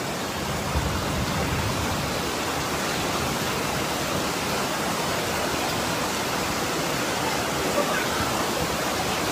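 Fast muddy floodwater rushing past in a torrent: a steady, unbroken rush of water.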